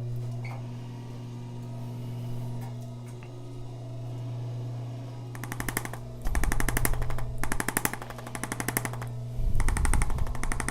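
A steady motor hum. About five seconds in, rapid machine-like tapping starts and comes in several bursts of about a second each.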